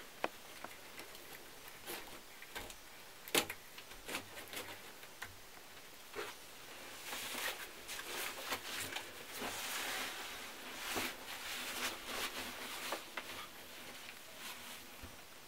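Scattered soft taps and clicks of a person handling things, then several seconds of rustling as he moves and lies down.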